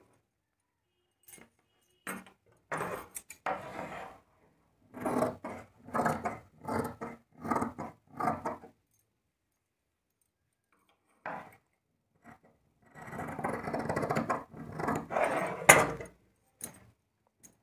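Large tailoring scissors cutting through folded cotton lining cloth on a wooden table: a run of snips about two a second, then cloth rustling as it is handled, and a sharp knock near the end as the scissors are set down on the wood.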